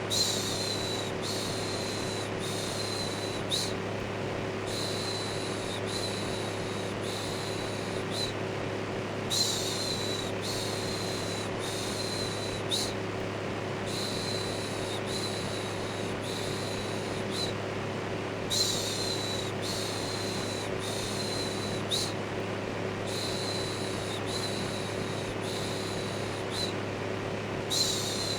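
Electric fan running with a steady hum, overlaid with rhythmic shushing ('shhh') in runs of four or five, about one a second, with a short pause between runs.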